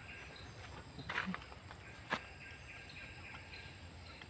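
A steady chorus of insects chirping in quick pulses, with a short scratchy noise about a second in and a single sharp click about two seconds in.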